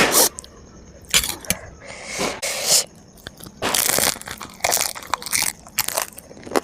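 Close-up crunching and chewing of crisp food, in irregular bursts.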